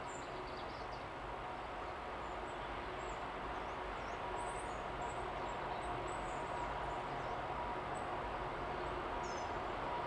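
Distant Class 66 diesel locomotive, with its EMD two-stroke V12, approaching with a heavy freight train: a steady hum with a few held tones, growing slowly louder. Birds chirp briefly and high above it.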